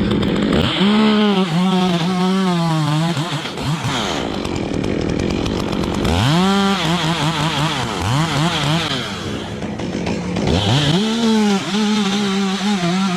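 Two-stroke chainsaw revved up to full speed three times. Each run holds for about three seconds, its pitch wavering as the saw works, then drops back toward idle.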